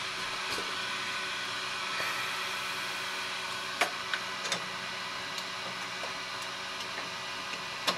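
Plastic parts clicking inside an Epson F2100 DTG printer, a few sharp clicks about four seconds in, as the ink charging unit is fitted in place of the gray cap piece. A steady mechanical whir runs underneath.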